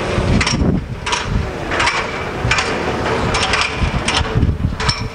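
A series of sharp knocks, roughly one every 0.7 s, of firefighters' boots and gear striking the rungs of a metal 24-foot extension ladder during climbing, over wind rumbling on the microphone.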